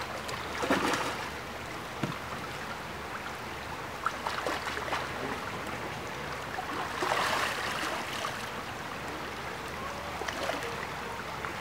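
Shallow gravel-bed creek running steadily, with louder bursts of splashing about a second in and again around seven seconds in.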